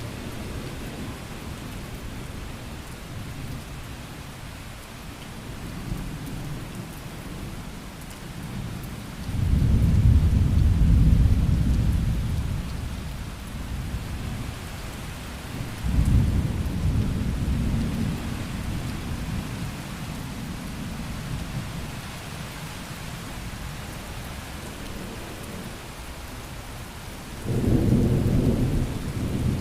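Thunderstorm: steady rain falling, with low thunder rolling in three times. The loudest and longest roll comes about a third of the way in, another around the middle, and a shorter one near the end.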